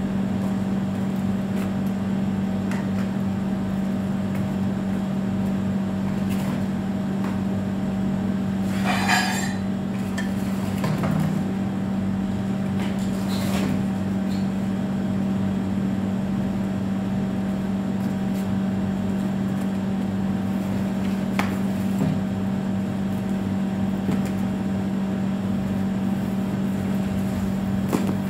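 A steady low mechanical hum, with a few scattered clinks and knocks as metal frame-pool poles are handled and fitted. The loudest, a short scraping rattle, comes about nine seconds in.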